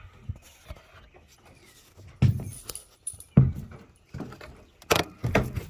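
Metal hardware clinking and knocking: several sharp clanks about a second apart as bolts are set into a steel lock plate on a trailer floor.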